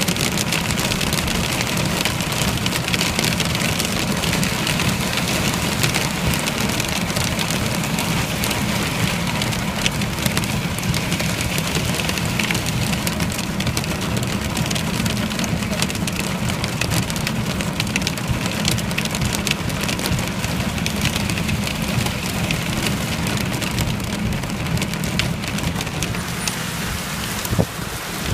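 Steady rain falling, with many fine drop hits, over a low steady hum.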